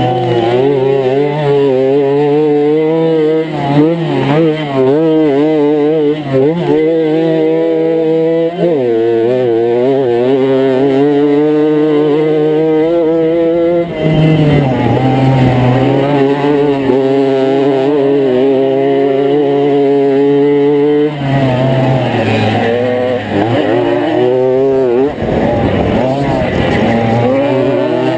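50 cc two-stroke moped engine running hard under race load, its pitch wavering as the revs change. The engine note drops and picks up again several times: about a third of the way in, halfway, and twice near the end.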